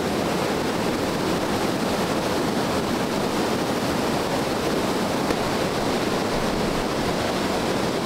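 Steady rush of flowing creek water, an even, unbroken noise.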